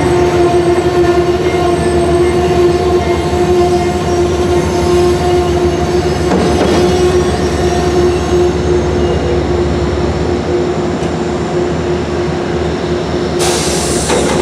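A train running close by, loud and steady, with a constant humming tone through it. A short burst of hiss comes near the end.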